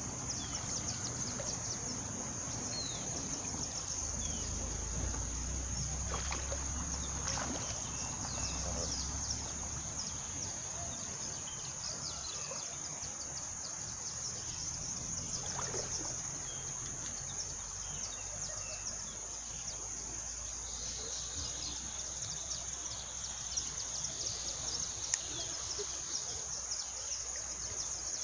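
Steady high-pitched insect drone over running river ambience, with a low rumble for several seconds in the first half and a few brief splashes from the water.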